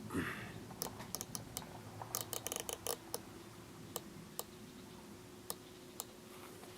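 Small, sharp mechanical clicks from a rifle scope's adjustment turret being dialed. A quick run of clicks comes about two to three seconds in, then a few single clicks.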